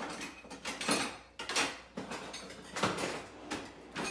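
Kitchen utensils clattering in a drawer as a pair of metal tongs is fetched: a run of rattles and knocks, the loudest about one, one and a half, and three seconds in.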